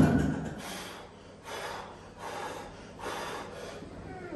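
Heavy exhaled breaths from a man bent over a loaded barbell between dead-stop reps of heavy block pulls, three of them about a second apart. At the very start the clatter of the bar and plates just set down on the step boxes is still fading.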